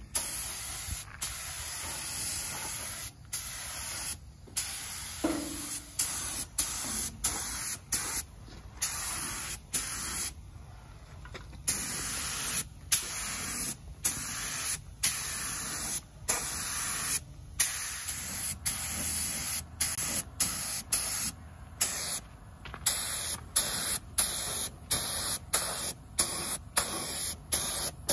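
Compressed-air paint spray gun hissing as it sprays primer, the trigger pulled and released again and again: a few longer passes at first, then short bursts about once a second toward the end.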